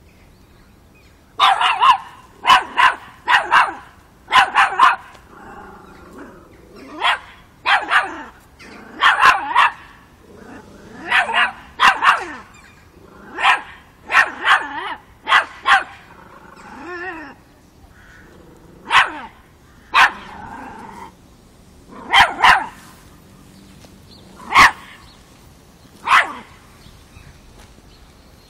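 Five-month-old Miniature Pinscher puppy barking at a cat: sharp barks in quick runs of two to four, with short pauses between runs, starting about a second and a half in.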